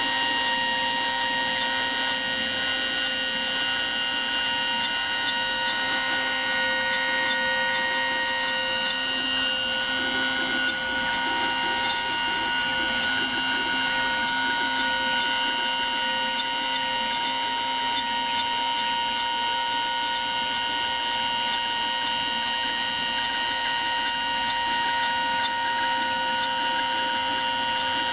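CNC router spindle running at a steady speed with a constant whine while its ball-nose bit carves walnut, the cut adding a fine rasp.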